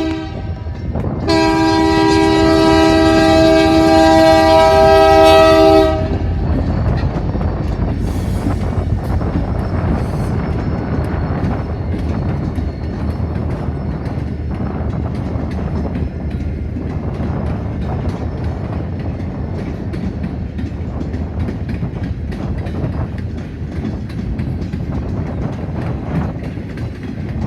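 Train horn sounding one long blast of several seconds, then the steady rumble and rattle of railroad cars rolling past.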